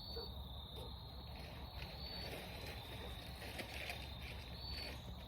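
A steady, high-pitched insect chorus over a low, steady rumble.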